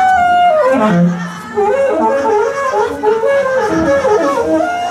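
Ensemble of violins and other instruments playing a conducted group improvisation (soundpainting), several held melodic lines overlapping and moving in small steps; a lower held note comes in about a second in.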